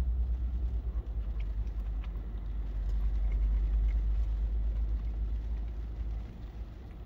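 Low rumble of a car, easing off about six seconds in, with a few faint clicks over it.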